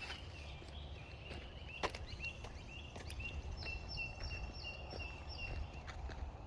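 A bird singing a run of short repeated notes, about three a second, over a low outdoor rumble, with one sharp knock about two seconds in.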